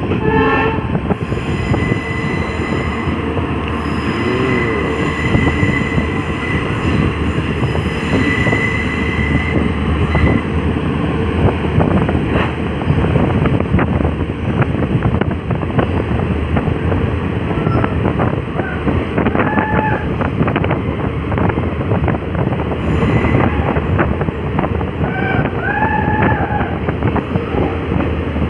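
Passenger train running at speed, heard from an open coach doorway: a steady rumble and rush of wind with the wheels clattering over the rails. A high steady whine comes and goes a few times in the first ten seconds, and a couple of short higher tones sound later on.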